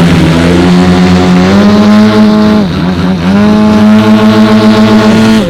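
Engine of a large-scale model aeroplane running loud and close. It is throttled back sharply about three seconds in, opened up again, and eases off near the end.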